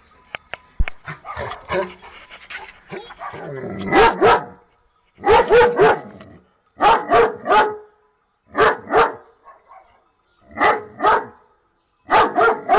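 German Shepherd barking in short runs of two or three barks, the first run about four seconds in, then a run every second or two. Before the barking, scattered clicks and rustling.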